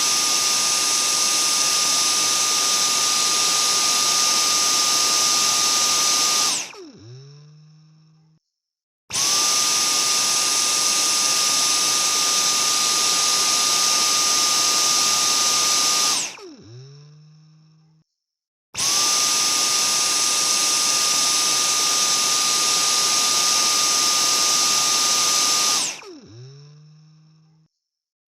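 Vacuum cleaner switched on and off three times. Each time its motor starts abruptly into a steady high whine with a rushing hiss, runs about seven seconds, then falls in pitch as it spins down.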